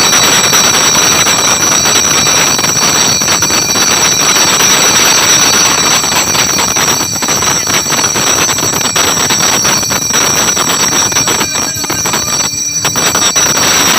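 Brass ritual hand bell shaken rapidly, with a steady high ringing over a loud, dense metallic din that thins briefly near the end.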